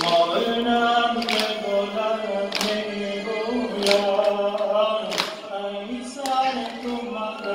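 A man chanting a Persian Muharram mourning lament (noha) into a microphone, long held notes ringing through a reverberant hall. A sharp beat keeps time about every second and a quarter.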